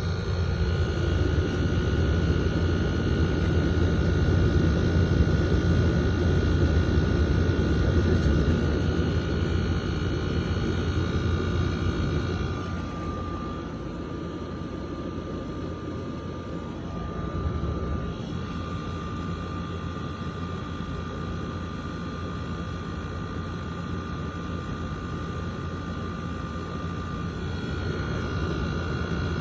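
Window air conditioners running: a steady drone of fan and compressor with a low hum and a thin, high steady whine. The sound drops somewhat about 13 seconds in and grows a little again near the end.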